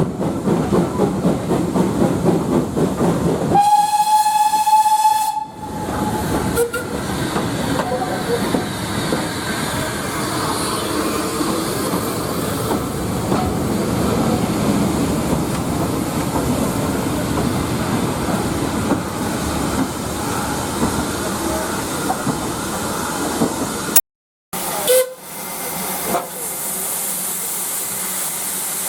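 Steam locomotive and train running on the line, with a steady rumble and hiss. About four seconds in, a single whistle blast sounds for under two seconds. Near the end the sound drops out for a moment and comes back quieter.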